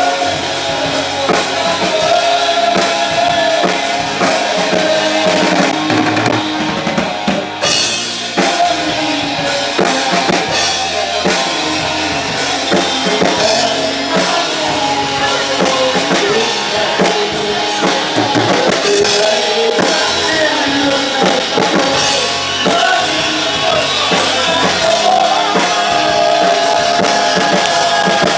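Rock band playing a song, with a drum kit prominent.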